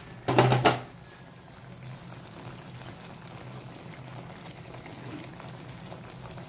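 Pork steak simmering in soy sauce in a frying pan, a steady low bubbling hiss, with a brief loud clatter about half a second in.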